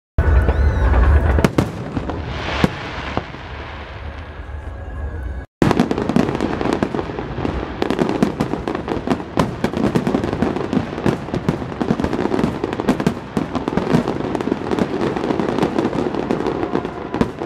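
Fireworks display: aerial shells bursting, with a heavy deep boom at the start and scattered bangs, then, from about six seconds in, a dense, rapid run of crackling and popping from many shells at once.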